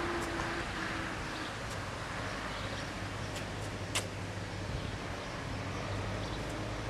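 Steady outdoor background noise with a faint low hum, and one sharp click about four seconds in.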